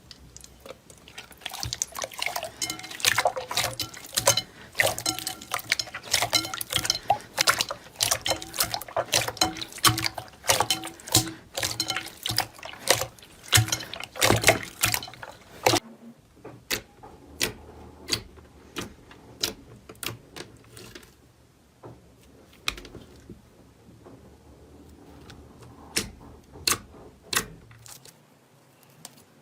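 Slime being squeezed and worked by hand: a dense run of wet clicks and pops for about fifteen seconds, then slower, separate pops until near the end.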